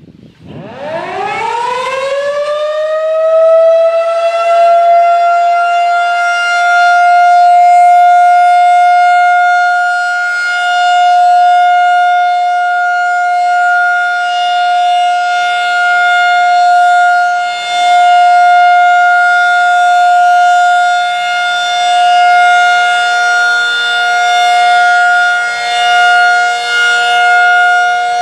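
Federal Signal 2001-SRN AC rotating outdoor warning siren starting up on its monthly alert test. It winds up in pitch over the first few seconds to a steady tone of about 713 Hz, then swells and fades slowly in loudness.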